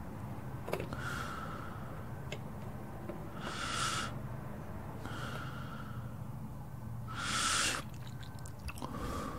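Slow, close breathing: hissy breaths in and out, one about every one and a half to two seconds, alternating stronger and weaker, over a steady low hum.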